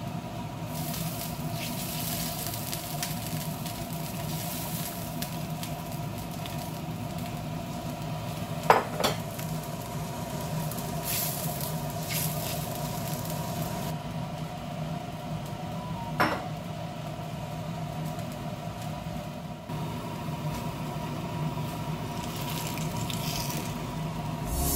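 Green onions and chillies simmering in a soy-sauce broth in a frying pan, with a wooden spatula stirring, over a steady hum. Two sharp knocks of a utensil on the pan, one about nine seconds in and one about sixteen.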